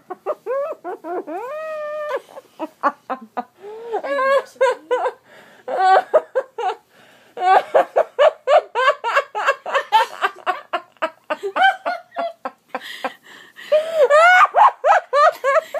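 A girl laughing hard while being tickled: long runs of quick, high-pitched laughter, with a held squeal about a second in.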